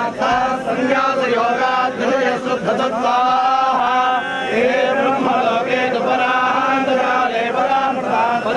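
A group of men chanting together, holding long notes that rise and fall, several voices overlapping.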